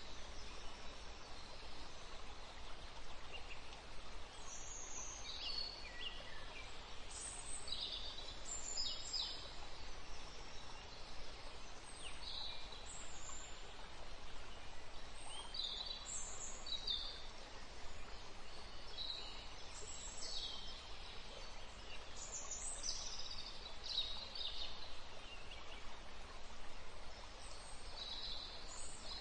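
Birds chirping: many short, high chirps, several of them falling in pitch, scattered over a steady hiss.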